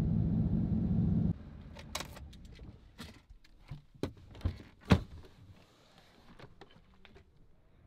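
Engine and road rumble inside a moving vehicle's cabin that cuts off abruptly about a second in, then a series of sharp clicks and knocks from handling things in the parked cab around the door handle, the loudest about five seconds in.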